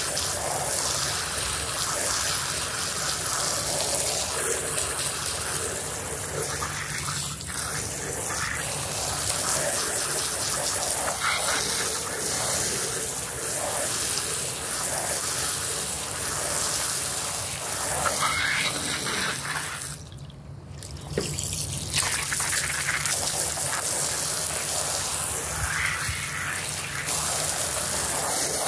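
High-pressure water jet spraying onto and rinsing a wet, soapy carpet: a steady hiss and splatter of water. It stops for about a second roughly twenty seconds in, then starts again.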